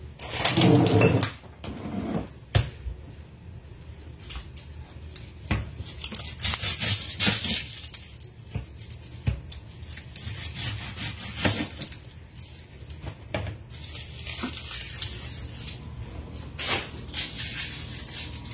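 Kitchen work at a counter: utensils and dishes clinking and knocking, with scraping and rustling, as a sandwich is put together. A loud close bump comes about a second in.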